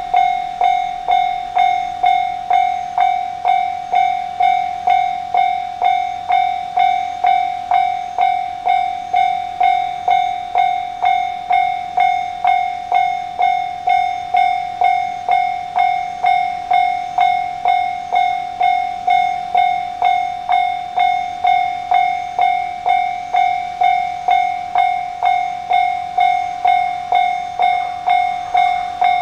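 A Japanese railroad crossing alarm clanging in a steady rhythm, about three strokes every two seconds, each a sharp ringing tone that fades before the next. This is the warning that a train is approaching the crossing.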